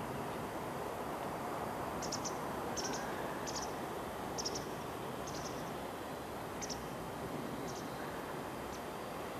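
A small bird chirping: about eight short, high calls, each a quick double or triple note, starting about two seconds in and spaced roughly a second apart, over a steady background hiss.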